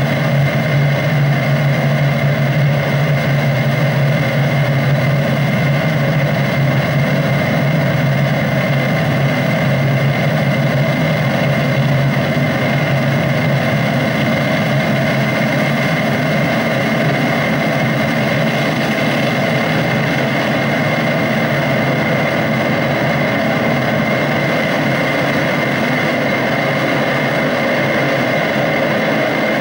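Live electronic soundscape played from a laptop: a dense, steady drone with a strong low hum and a thin high tone above it, engine-like in character.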